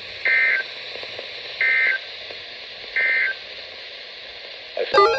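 Three short bursts of EAS digital data tones, the end-of-message code that closes an Emergency Alert System alert, each about a third of a second long and a little over a second apart, over a steady radio hiss. A click comes near the end.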